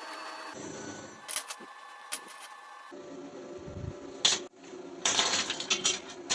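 Scattered sharp clicks and knocks of metal parts being handled, with a steady hum in the first half second and a louder run of clatter near the end.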